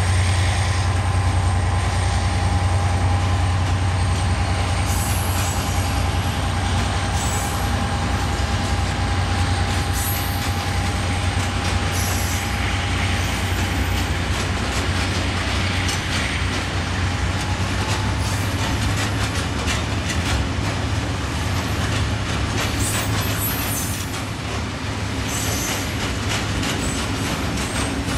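HŽ series 2044 diesel locomotive hauling a full freight train of hopper wagons, its engine running with a steady low drone under load, while the wagons' wheels clatter over the rails. A thin steady wheel squeal fades out about halfway through.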